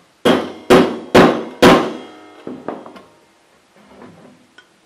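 Ball peen hammer tapping a press-fit end cap onto a metal support rod through a stainless steel trough: four sharp strikes about half a second apart, each ringing briefly, then a few lighter knocks.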